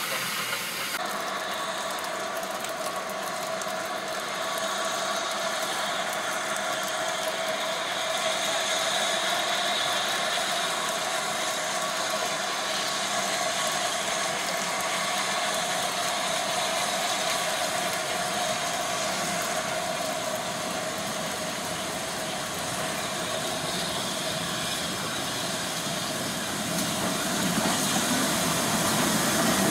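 Steam locomotives standing in a station, hissing steadily, with a steady mid-pitched note in the hiss. Near the end it grows louder as GWR 2-8-0 No. 2807 draws closer.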